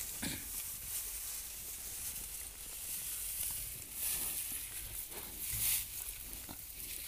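A young calf sniffing at straw right by the microphone: hissing puffs of breath through its nose over rustling dry straw, with a couple of louder puffs past the middle.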